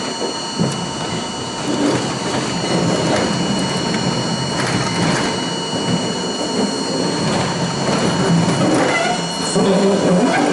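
R42 subway car running along the track, heard from inside the car: steady wheel-on-rail rumble with rattling and clicking from the car body, and a few thin high-pitched steady tones above it.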